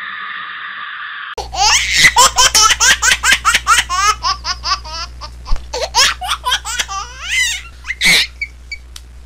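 A steady hiss for about the first second and a half, then loud, hearty laughter in quick repeated bursts that slide down in pitch, fading out near the end.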